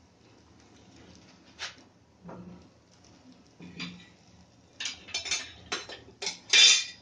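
A cooking utensil scraping and knocking against a non-stick frying pan: a few scattered scrapes at first, then a quick run of louder scrapes in the last two seconds, the loudest near the end.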